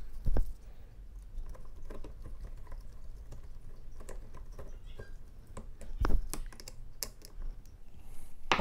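Small clicks and taps of a screwdriver, hex key and screw against a lathe's metal motor mounting plate as the screw is fitted by hand, with two louder knocks: one just after the start and one about six seconds in.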